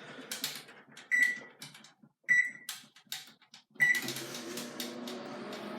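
Microwave oven keypad beeping three times as it is set to reheat a mug brownie for another ten seconds. The oven then starts and runs with a steady hum.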